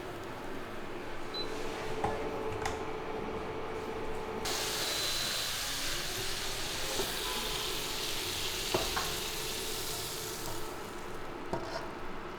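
Food frying in hot oil: a loud sizzle starts suddenly about four and a half seconds in and dies down near the end, with a few knocks of a utensil against the pan.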